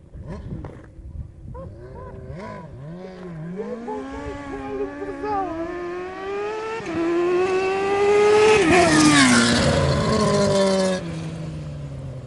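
Suzuki GSX-R 600 motorcycle engine in a shifter go-kart, revved in a few quick blips, then accelerating hard with its pitch and loudness climbing. Its pitch falls steeply at the loudest point about nine seconds in, and the sound cuts off suddenly near the end.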